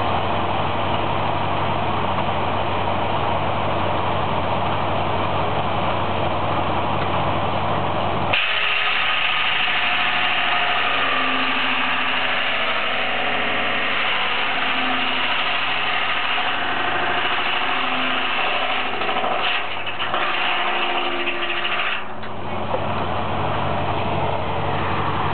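Antique stave mill running steadily with a low hum. About eight seconds in, a harsher, higher-pitched rasping takes over as the drum cutter bites into a bolt of wood fed against it, then it ends about 22 seconds in and the steady running sound returns.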